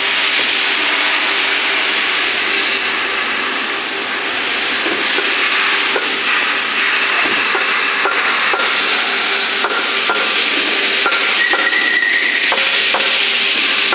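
Steady, loud hiss and hum of running machinery in a large workshop, with occasional short knocks and a brief high tone about twelve seconds in.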